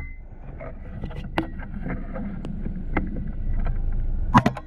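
Low wind rumble on the microphone with a few light clicks, then one sharp shot from the suppressed LCS SK-19 PCP air rifle about four and a half seconds in: a follow-up shot after a miss.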